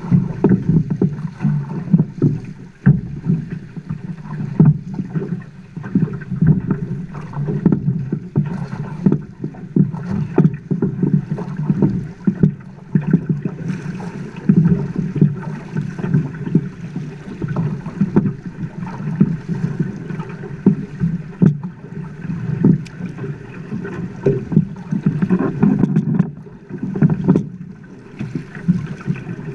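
River water rushing and slapping against the side of a boat, heard close up: a constant choppy noise with many irregular splashes.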